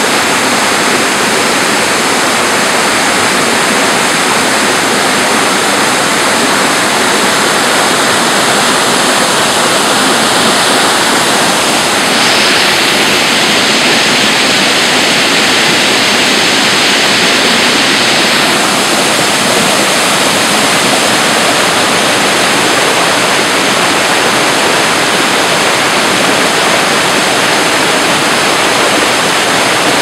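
A waterfall rushing over rock ledges into a rocky stream, a steady loud rush of water. About twelve seconds in it turns brighter and louder for around six seconds, then settles back.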